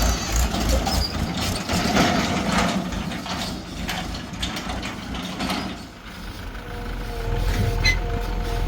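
Heavy diesel machinery working, with metallic clanking and rattling over the first several seconds. After a brief lull, a steady, slightly wavering whine runs over the engine.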